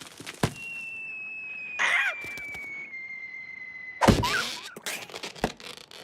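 Cartoon slapstick sound effects: a sharp knock, then a long thin whistling tone sliding slowly down in pitch, broken by short squeaky character vocalisations. A loud hit comes about four seconds in, followed by more squeaks and a smaller knock.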